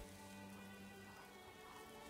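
Very faint background music: soft notes held steadily.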